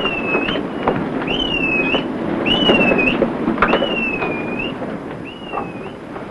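Rope squealing through ship's blocks as a deck crew hauls on a line. There is one high squeal with each heave, about once a second, fading toward the end, over a steady rush of wind and sea.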